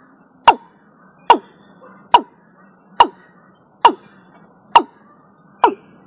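Watercock (Gallicrex cinerea) calling: a steady series of short notes, each falling sharply in pitch, seven in a row a little under a second apart.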